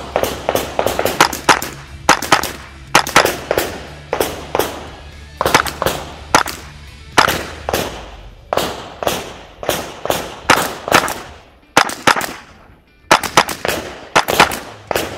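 A .22 rimfire semi-automatic rifle fired rapidly in strings of several shots at a time, with short pauses between strings, dozens of shots in all, each shot ringing briefly.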